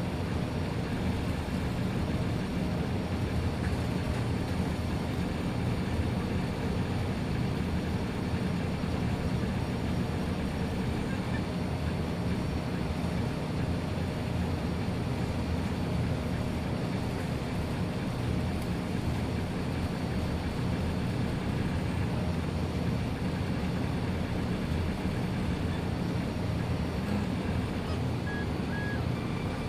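Ord-Bot 3D printer printing: a steady hum from the E3D v6 hotend's cooling fan and the stepper motors driving the print head and bed, with a couple of brief higher tones near the end.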